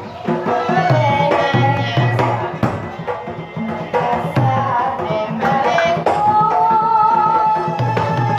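Bantengan ensemble playing: barrel hand drums and a large bass drum struck with a padded beater keep a beat of repeated strokes and low booms, under a high, wavering melody line that slides between notes.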